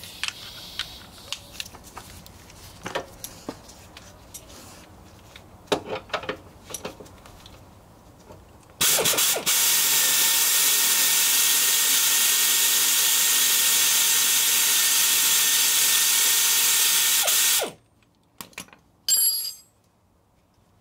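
Pneumatic air ratchet with a 12 mm deep socket running steadily for about nine seconds as it spins the sway bar link nut loose, after a few light clicks of the socket being fitted, then cutting off with one short burst after.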